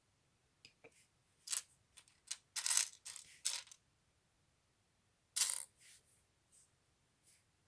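Small plastic LEGO pieces clicking and clattering against each other as they are handled: a string of short, irregular rattles, the loudest two about three and five and a half seconds in.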